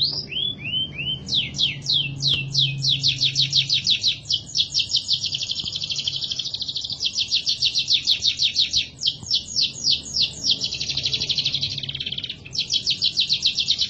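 Domestic canary singing a long, loud song of rapid repeated trills. It moves from slower sweeping notes into very fast rolls, with a short break about twelve seconds in before another trill.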